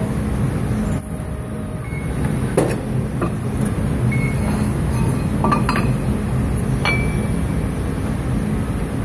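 Steel armor plate clinking against the steel die tooling of a press brake as it is shifted by hand, a handful of sharp metal clinks between about two and a half and seven seconds in, the first the loudest. Under them a steady low machine hum.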